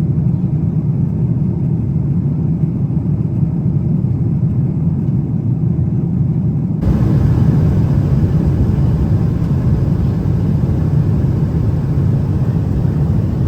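Steady low rumble of a Boeing 777's engines and airflow heard inside the economy cabin. About seven seconds in it changes abruptly to a brighter, slightly louder hiss over the same rumble.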